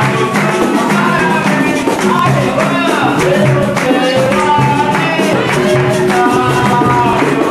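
Capoeira roda music: voices singing a call-and-response song over tambourine-like pandeiro jingles, rattling percussion and a steady beat.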